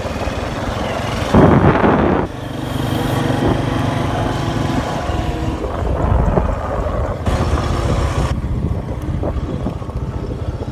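Small vehicle engine running while being ridden, with wind buffeting the microphone. A brief, loud gust of wind noise comes about a second and a half in.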